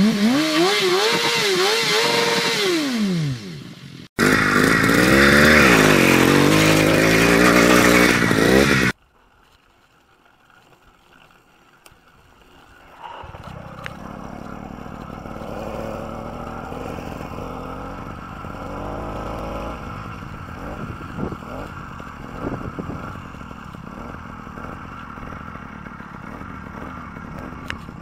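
Engine revving hard in two loud bursts, its pitch climbing and falling, cut off sharply after about nine seconds. After a few seconds of quiet, a small two-stroke bicycle-kit engine runs steadily under way, with wind and gravel crunching under the tyres.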